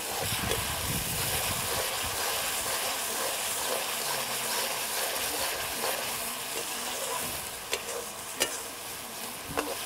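Tomato-onion masala sizzling in oil in a metal kadhai over a wood fire, stirred with a steel spatula that scrapes the pan, with a few sharp clicks near the end. The masala is frying down to the point where the oil separates from it, the sign that it is well cooked.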